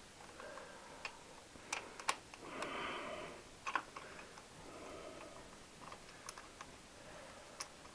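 Scattered small clicks and taps of metal parts and hand tools being handled while fitting washers and nuts on a motorcycle engine, with a short rustling scrape about three seconds in.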